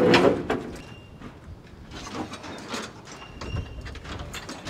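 The tilting bonnet of a Freightliner truck being pulled forward open with a long hook. A louder bump at the start, then scattered knocks and faint squeaks as the hood swings forward on its hinges.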